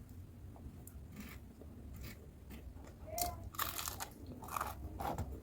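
Close-up chewing and crunching of crisp food in the mouth, over a low steady hum. The crunches grow louder and more frequent from about halfway through.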